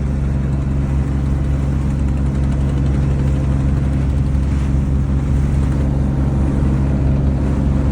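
Boat engine running steadily: a constant low drone heard on board.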